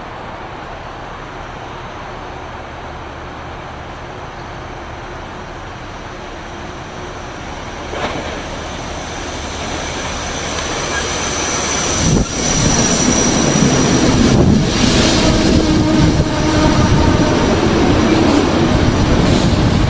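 Metro-North commuter train approaching the station, growing steadily louder, with the rails giving a high thin whine ahead of it. From about twelve seconds in, the train is loud, rumbling and rattling past over the track.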